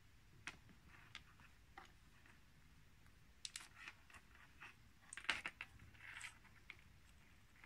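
Faint scattered clicks and taps of small plastic and metal parts being handled as a black control knob with a brass insert is fitted onto a potentiometer shaft, the loudest cluster of clicks about five seconds in.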